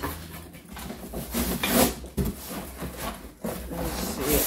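Flaps of a corrugated cardboard box being pulled open by hand, the cardboard scraping and rubbing, with louder scrapes about two seconds in and again near the end.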